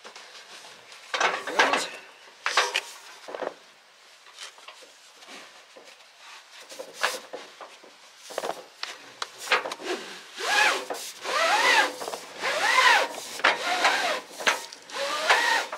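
New RV awning fabric being worked into the camper's awning rail, its edge rubbing and dragging in the track in short scrapes, then squeaking with rising-and-falling squeals over the last few seconds; the new fabric is thicker than the original, so it binds in the rail.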